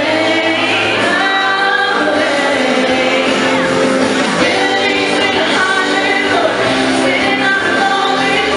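A man singing a pop song into a handheld microphone over instrumental accompaniment, amplified through a stage PA, with long held notes.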